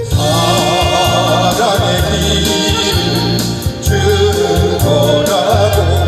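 Korean trot song performed live: a male singer over a backing track with a steady bass beat, with a saxophone playing along.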